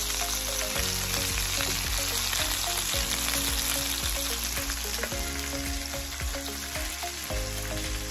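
Chicken thighs and pork belly frying in their own rendered fat, with no oil added, in an uncovered stainless-steel electric skillet: a steady sizzle.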